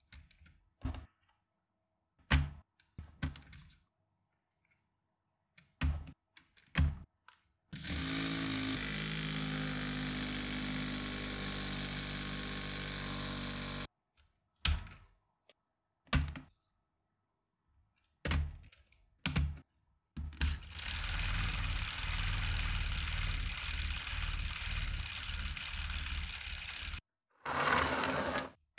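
Lego Technic plastic parts clicking and knocking as they are handled and fitted, interrupted twice by a Lego gear train driven by an electric motor running for several seconds: the first run rises in pitch as it spins up, the second is noisier. A short loud burst comes near the end.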